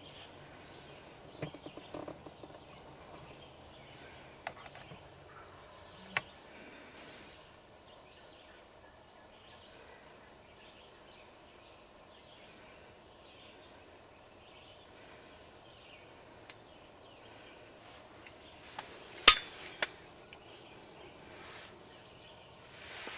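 Quiet woodland ambience with faint short calls and scattered small clicks, broken by one sharp, loud knock about nineteen seconds in, followed by a smaller one.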